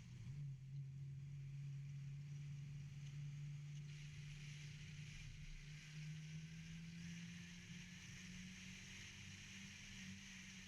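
Car engine running with a steady drone, its pitch rising a little about six seconds in as it picks up revs, over a hiss of wind or tyre noise.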